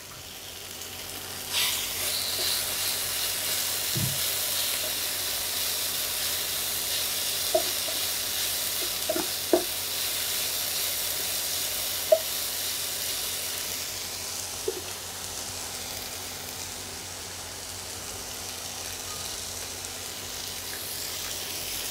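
Diced carrots and green capsicum sizzling in oil in a nonstick frying pan with fried onion and tomato, stirred with a wooden spatula. The sizzle swells about a second and a half in and holds steady, with a few light taps of the spatula on the pan in the middle.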